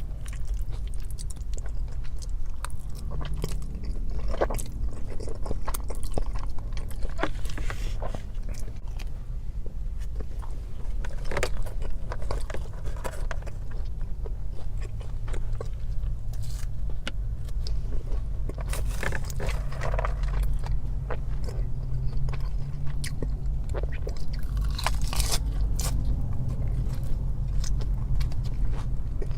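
Close-miked eating of pasta, mozzarella sticks, salad and breadsticks: repeated bites and chewing, with sharp crunchy clicks scattered throughout, over a steady low hum.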